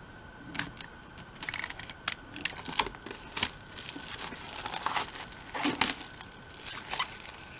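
Clear plastic shrink-wrap slit with a utility knife and peeled off a hardcover album, crinkling and crackling irregularly as it is pulled away.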